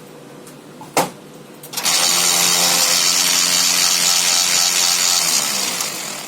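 A sharp click, then a Konica Minolta bizhub C258 colour copier's drive starts up with a loud grinding noise that runs steadily for about four seconds and fades near the end. The noise is the fault symptom of a blocked waste toner unit.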